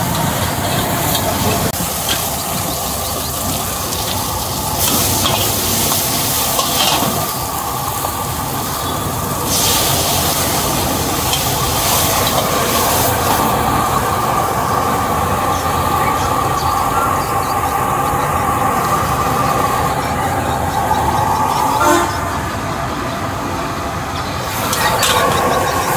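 Stir-frying leafy greens in a steel wok: a metal spatula scraping and clanking against the wok over steady sizzling and burner noise, with a few louder hissing surges and one sharp clank near the end.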